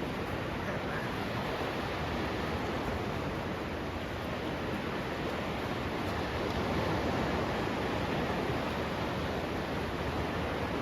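Steady rushing of sea surf mixed with wind noise, swelling slightly about seven seconds in.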